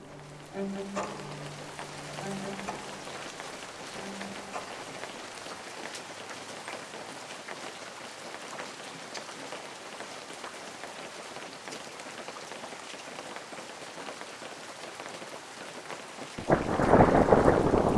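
Rain falling steadily: an even hiss with scattered ticks of drops. Near the end a much louder, deeper crackling rush sets in suddenly.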